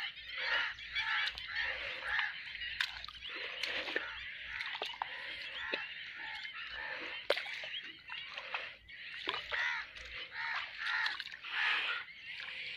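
A large flock of birds calling continuously in a dense, overlapping chatter, with a few sharp clicks, the loudest about seven seconds in.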